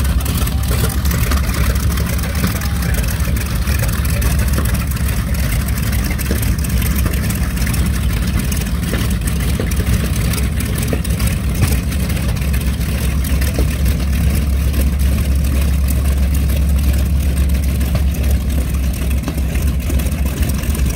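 The twin Wright R-2600 Twin Cyclone radial engines of a North American PBJ-1J (B-25J) Mitchell running steadily at low taxi power as the bomber rolls past and away.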